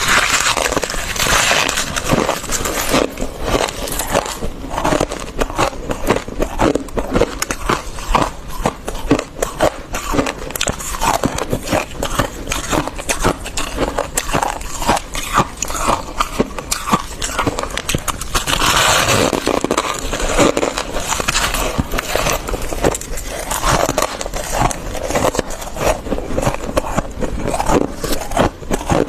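Fluffy freezer frost crunching in a rapid, irregular crackle as it is bitten and chewed, with longer scraping sounds twice, about a second in and near the middle.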